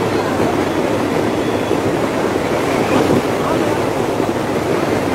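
Steady rushing of sea surf and wind, mixed with the low running of a diesel passenger train crossing a sea bridge.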